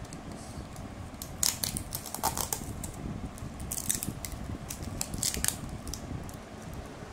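Thin plastic takeaway food tray crinkling and clicking as it is handled and its lid is worked at, a handful of short crackles over quieter rustling.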